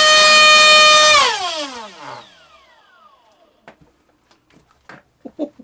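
Turnigy 2836 3200kV brushless EDF motor spinning a 4.5×4.5 propeller at full throttle on a 4-cell pack, a loud steady high-pitched whine. About a second in it is throttled off and winds down in a falling whine over about two seconds, followed by a few light clicks. At full throttle it draws over 1,000 watts, nearly 400 watts over its spec.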